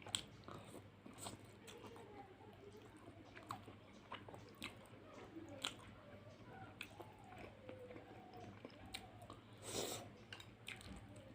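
Close-up chewing and mouth sounds of a person eating fish curry with rice: soft wet chewing with many short sharp clicks and smacks, a louder smack near the end.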